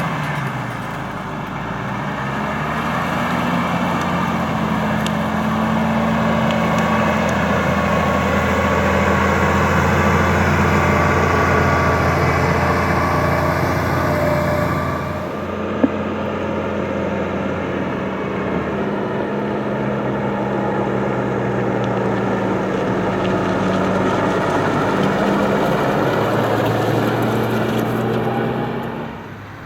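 Case IH Puma 215 tractor's six-cylinder turbo diesel running steadily under load while ploughing with a six-furrow plough. About halfway through the sound changes, with less hiss in the highs and a single sharp click.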